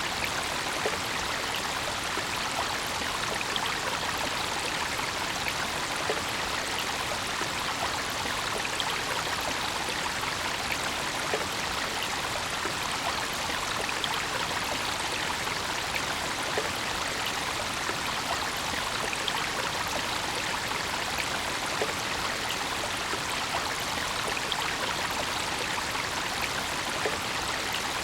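Brook water running steadily over stones, an even rushing babble with many small splashes and trickles.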